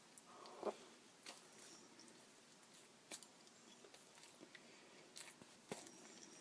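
Faint chewing of a bite of a barbecue-sauced sandwich: sparse, soft mouth clicks, one a little louder just under a second in, over near silence.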